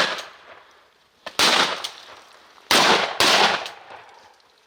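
Shotgun blasts at ducks: three loud shots about a second apart, the last two in quick succession, each trailing off in a short echo.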